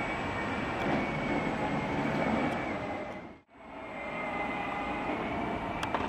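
Steady whine of small electric motors over the rumble of plastic wheels rolling on asphalt, from a Peg Perego John Deere ride-on toy vehicle and a radio-controlled model airplane moving along the street. The sound fades out briefly about halfway through and comes back.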